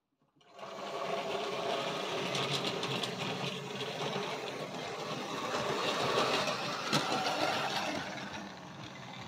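Freshly serviced model 'Jinty' tank locomotive running along the track with two wagons: the small electric motor whirs steadily, with wheel noise and an occasional sharp click. It starts about half a second in and eases off near the end.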